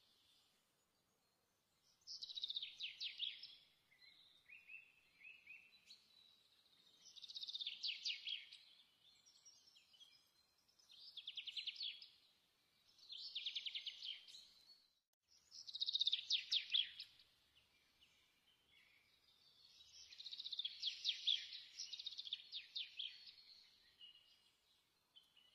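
Songbird singing: short, high-pitched, rapidly trilled phrases repeated every few seconds.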